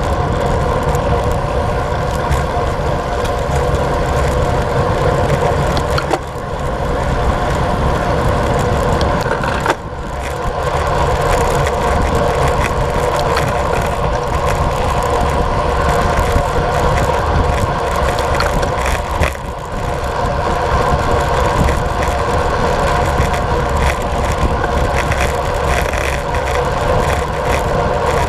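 Steady rush of wind on the microphone and tyre noise from a road bicycle riding fast on asphalt, briefly dropping three times.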